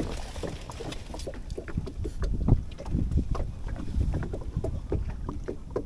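Wind rumbling on the microphone, with small scattered clicks and knocks.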